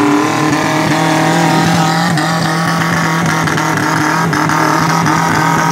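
Suzuki Jimny's engine held at steady revs under load as the 4x4 churns through deep mud ruts, with a few sharp clicks about two and four seconds in.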